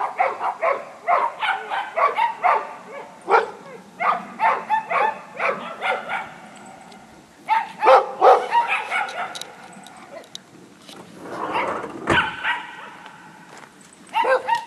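Dog barking repeatedly, in quick runs of short barks separated by brief pauses.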